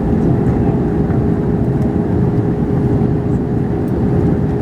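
Airbus A321ceo cabin noise during the descent: a steady rush of airflow and engine noise with a constant low hum.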